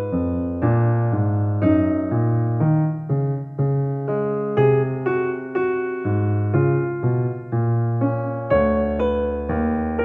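Background music on an electric piano: evenly paced notes about two a second over low bass notes.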